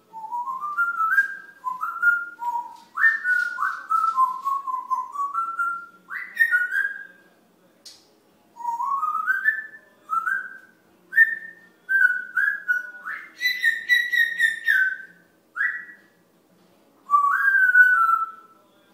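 African grey parrot whistling a string of short phrases, the notes often stepping up in pitch. There are brief pauses about eight seconds in and near the end, and a longer, louder held note about two-thirds of the way through.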